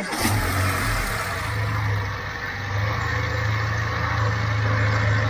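Mercedes-Benz B150's four-cylinder petrol engine starting and then idling steadily, just refilled with fresh 5W-40 oil after an oil change.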